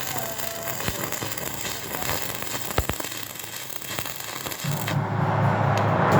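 Stick (arc) welding crackle: a steady frying crackle with scattered sharp pops as a seam is run downhill. About five seconds in, a louder, deeper rushing noise takes over.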